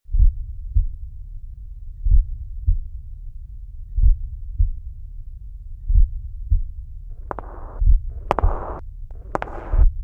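Slow heartbeat sound effect: a low double thump about every two seconds. Near the end come three short rushing bursts, each starting with a sharp crack.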